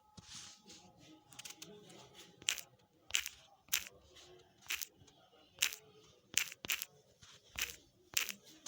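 Taps on a smartphone touchscreen: about nine sharp ticks at irregular spacing, a couple of them in quick pairs.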